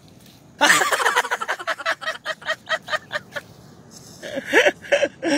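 A person laughing in a rapid run of short 'ha-ha' bursts, about four or five a second, that starts about half a second in and trails off, followed by a shorter second bout of laughter near the end.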